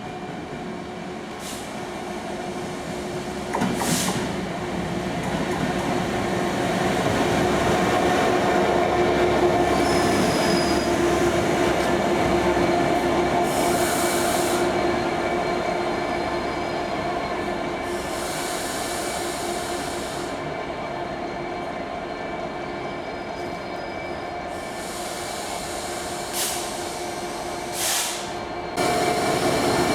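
A train moving through the station with a steady engine drone that builds over the first several seconds and then slowly eases. A few sharp clicks and short spells of high hissing come and go over it.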